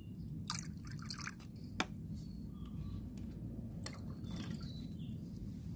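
Liquid fermented animal-manure fertiliser poured in a thin stream and dripping into a plastic jar nearly full of water. A few sharp clicks of plastic being handled come in the first two seconds.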